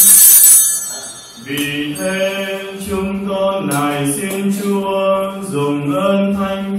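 A loud, bright metallic ringing ends about half a second in. After a short gap, sung liturgical chant takes over, with long held notes stepping from pitch to pitch.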